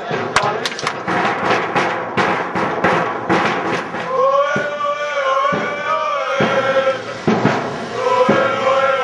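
A crowd of football supporters chanting with rhythmic sharp beats. About halfway through, the chant turns into a long sung line in unison, with beats roughly once a second.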